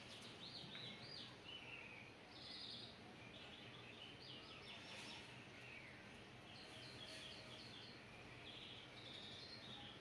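Faint birdsong: series of quick, high chirps and short trills that come and go every second or two, over a soft steady hiss.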